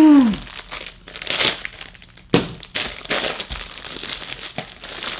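Packaging being crinkled and torn open by hand: irregular rustling with a few sharper crackles. A short falling vocal 'oh' at the very start is the loudest moment.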